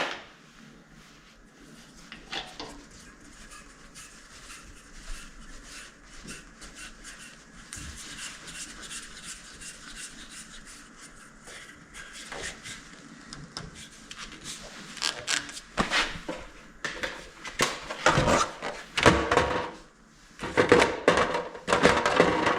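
Handling noise of a small hand-turned wooden knob being fitted to a lathe's handle: scattered clicks, knocks and scrapes, getting busier and louder in the last several seconds.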